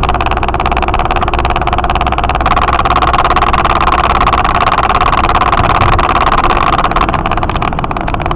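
Car engine and road noise heard from inside the cabin while driving on a highway: a steady loud drone that swells a little about two and a half seconds in.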